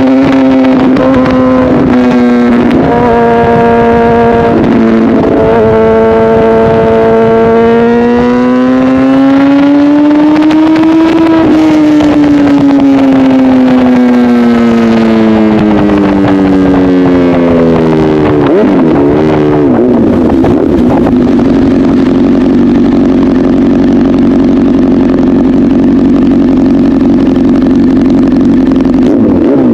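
Honda CBR1000RR inline-four engine through an SC-Project aftermarket exhaust, under way at high revs: the note holds with a few brief breaks, climbs to a peak about 11 seconds in, falls away steadily until about 18 seconds, then settles into a steady drone.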